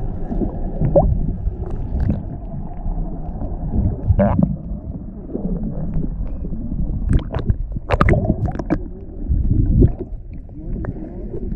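Uneven low rumble of wind and water on a boat at sea, with indistinct voices and a few sharp clicks or knocks between about seven and nine seconds in.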